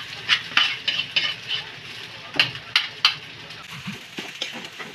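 Fried rice being stirred and tossed in a sizzling pan: a spatula scrapes and knocks against the pan in quick strokes over a steady frying hiss, the strokes coming fast in the first three seconds and fainter after that.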